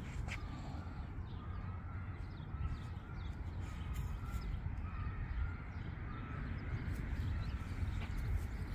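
A bird calling over and over in short notes, over a steady low rumble.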